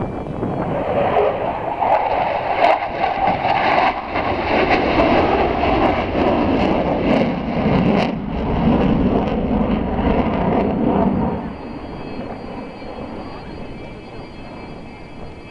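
Sukhoi Su-27 fighter jet flying past, the noise of its twin turbofan engines loud for about eleven seconds, then fading away.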